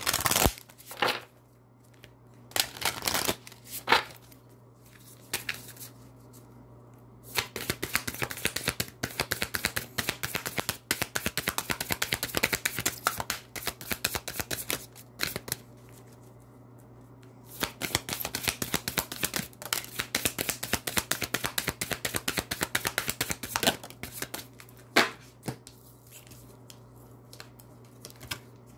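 A deck of affirmation cards being shuffled by hand. A few single card snaps come first, then two long runs of fast rattling clicks, one of about eight seconds and one of about six, with a short pause between them and a couple of last taps near the end.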